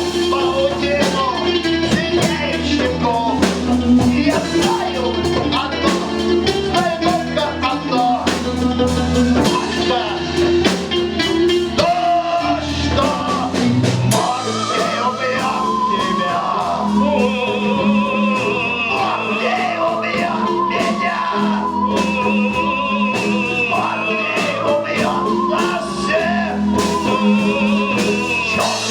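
A live rock band plays with a man singing lead over drums and bass. About halfway through, a high, wavering, sustained melody line comes to the fore.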